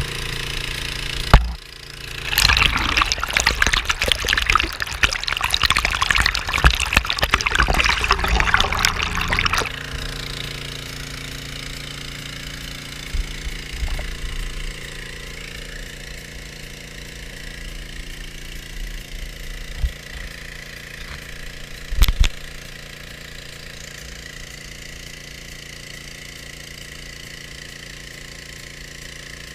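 Water rushing through a gold dredge's sluice box over expanded-metal riffles, with the dredge's gas engine running steadily underneath. The flow is loud and churning at first, then settles to a steadier rush after about ten seconds. A sharp knock comes about a second in, and another about two-thirds of the way through.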